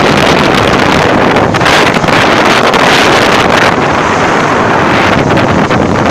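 Loud, steady rushing of wind buffeting the microphone, over the wash of a ship's bow wave foaming around the bulbous bow.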